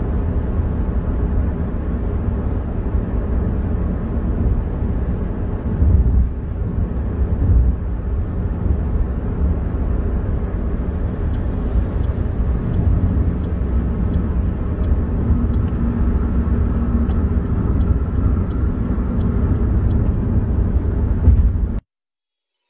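Steady low rumble of road and tyre noise inside a Toyota car's cabin while cruising at motorway speed. It cuts off suddenly near the end.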